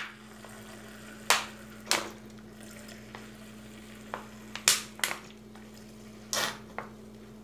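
Vinegar pouring from a plastic bottle into a glass cup, with a soft trickle and about seven short, sharp crackles scattered through the pour.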